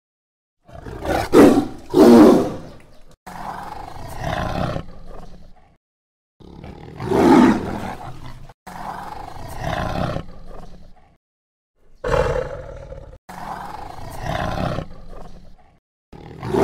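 Tiger roaring and growling in a run of about seven separate calls with short gaps. About a second in come two loud roars close together, followed by longer, somewhat quieter growling roars, each cutting off abruptly.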